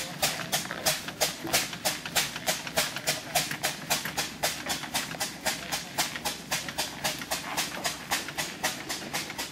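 Steam traction engine driving off, its chimney exhaust chuffing in an even beat of about four to five puffs a second.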